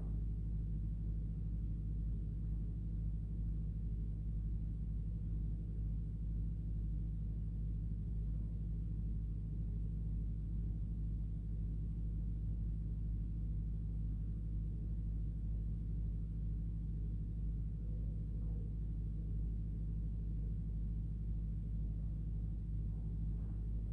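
A steady low rumble with nothing standing out.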